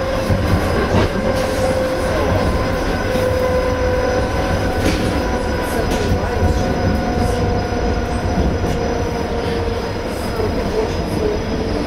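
ED4M suburban electric train running at speed, heard from inside the carriage: a steady rumble of wheels on rails with a thin, slightly wavering whine over it and a few sharp clicks over rail joints.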